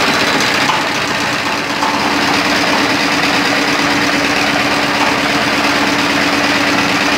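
Generator set's engine running steadily just after start-up while its throttle is set to bring the output up to voltage, with a steady hum that comes in about two seconds in and holds.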